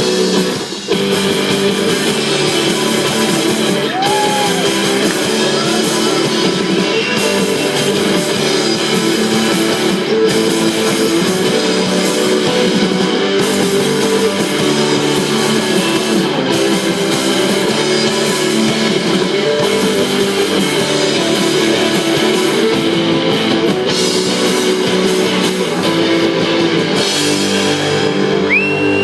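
Live indie rock band playing an instrumental passage: loud electric guitars over a drum kit, without singing.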